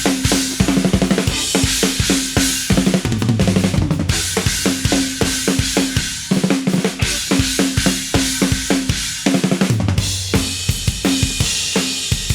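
Live blues-rock band playing an instrumental passage without vocals: a busy drum kit with kick, snare and cymbals over a repeating low riff.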